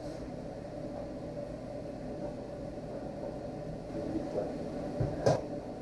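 Steady hum of a kitchen ventilation fan, with faint kitchen clatter about four seconds in and one sharp knock a little after five seconds, the loudest sound.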